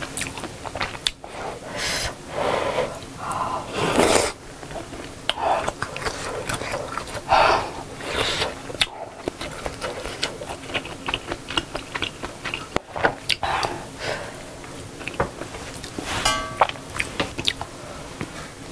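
Close-up eating sounds of budae jjigae (Korean army-base sausage stew): sips of hot broth from a spoon, with chewing and swallowing. A spoon clicks and scrapes against the bowl and the metal pot, with a short ringing clink near the end.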